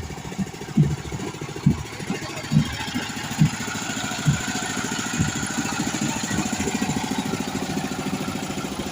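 Carnival sound-system speaker stack playing a bass-heavy remix, heard as a low kick beat about once a second over a dense low rumble. The kicks fade out about halfway through, leaving the rumble.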